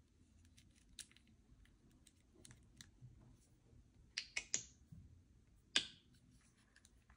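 Small plastic LEGO pieces clicking and tapping as they are handled and snapped into place. Faint scattered ticks, then a quick run of sharper clicks about four seconds in and one loud click near six seconds.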